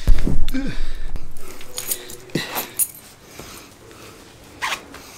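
A bunch of keys on a clip jingling and clicking as it is pulled out of a pocket, with a heavy handling bump on the microphone at the start. The keys had been jangling against the microphone.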